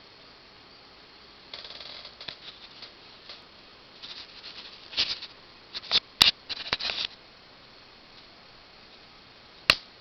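Irregular bursts of small mechanical clicking and rattling, with a sharp click a little after six seconds and another near the end.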